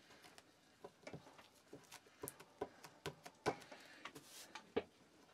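Faint, irregular soft taps of a ball of museum putty being dabbed on a wooden tabletop to lift off leftover putty, a few of them louder in the second half.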